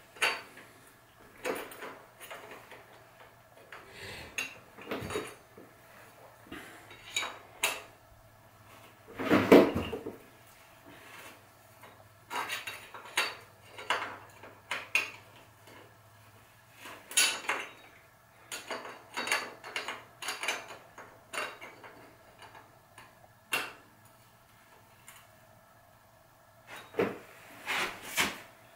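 Metal hand tools and parts being picked up, handled and set down: irregular clinks and knocks, with one louder knock about ten seconds in.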